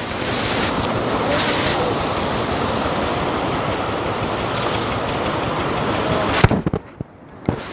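Muddy flash-flood torrent rushing steadily down a wadi channel, a dense, even roar of water. About six seconds in, a sharp knock and the sound drops out for about a second, with another knock before it returns.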